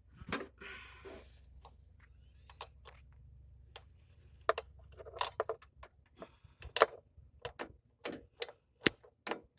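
Irregular sharp clicks and light metallic knocks of hand tools working on the carburetor mounting bolts, a dozen or so spread over several seconds, after a short rustle at the start.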